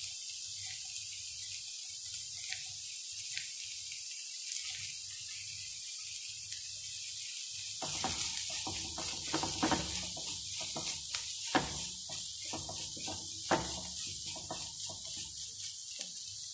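Chicken and onion masala frying in a pan with a steady sizzling hiss. About eight seconds in, a wooden spatula starts stirring the mixture, adding irregular scrapes and soft knocks against the pan.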